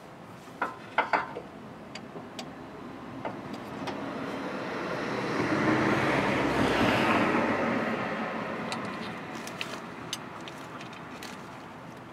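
A few sharp clicks, then a road vehicle driving past: its tyre and engine noise swells, peaks about halfway through and fades away.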